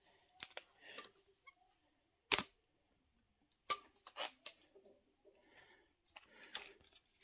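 Handling noises of hands on turntable parts: scattered sharp clicks and taps, the loudest about two seconds in and a few more a little later, with light rustling of a plastic tag.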